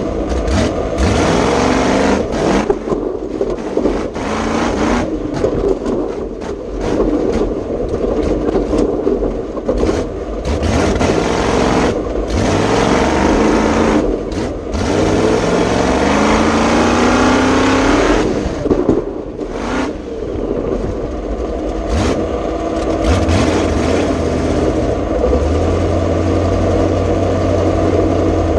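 Ford 351 Cleveland V8 of a rough-track race truck running hard, revving up and dropping back as the driver shifts and steers. A long rising rev comes midway. Near the end it settles to a steadier, lower note.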